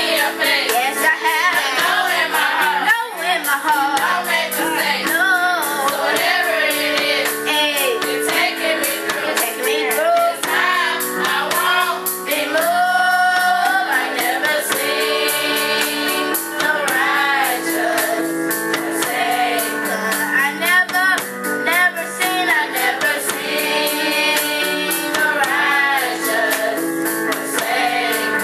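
A youth group singing a gospel song together, children's and women's voices, over sustained chordal accompaniment and a steady beat.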